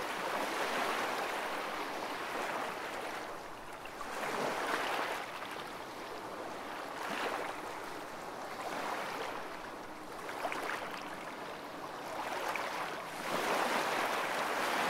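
Ocean waves washing as a steady rushing noise that swells and ebbs every few seconds, louder near the end.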